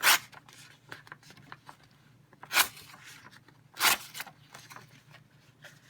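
An OTF knife's 8Cr13 steel blade slicing through a sheet of paper three times, each cut a short papery rasp: a sharpness test of the reassembled knife.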